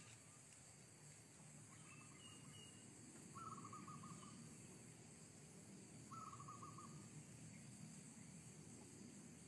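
Zebra dove cooing: three short rolling trills of rapid staccato notes, the second and third louder than the first. A few faint higher chirps come from another bird about two seconds in.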